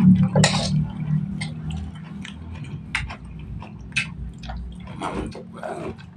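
Close-miked mouth sounds of a person chewing a mouthful of fried noodles: wet smacks and small lip clicks, scattered irregularly. A low hum at the start fades away over the first couple of seconds.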